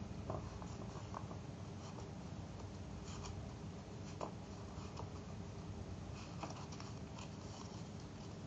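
Pleated paper strip rustling and crinkling as it is squeezed and folded by hand: faint, irregular little crackles over a steady low hum.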